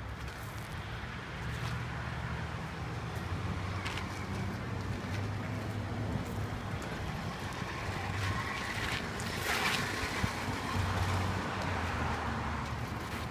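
Street traffic: a vehicle engine runs with a low, steady hum, and a wash of traffic noise swells about eight to ten seconds in.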